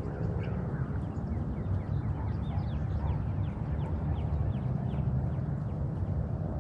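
Birds calling: a quick run of short, falling chirps over a steady low rumble.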